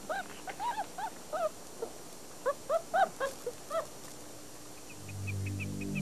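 Three-week-old gray wolf pup whimpering in two bouts of short, high squeaky whines, each rising and falling in pitch. Low music fades in near the end.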